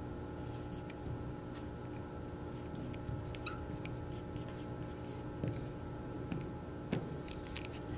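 Dry-erase marker writing on a clear plastic dry-erase sleeve: short squeaky, scratchy strokes as letters are drawn, over a faint steady hum.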